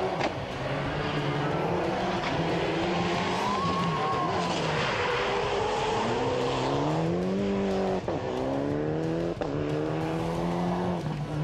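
Mitsubishi Lancer Evolution rally car's turbocharged four-cylinder engine revving hard as the car drives past. The pitch falls and then climbs again, with sharp breaks about eight and nine and a half seconds in.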